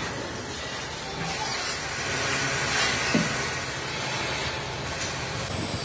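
Steady workshop machinery noise, a hiss over a low hum, with a light knock about three seconds in. A thin high whine starts near the end.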